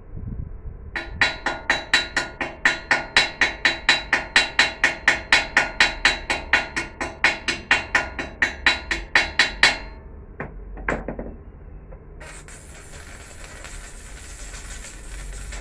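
A hammer striking steel in a fast, even run of about four or five blows a second, each blow ringing, for about nine seconds. A few single knocks follow, then a steady hiss starts about twelve seconds in.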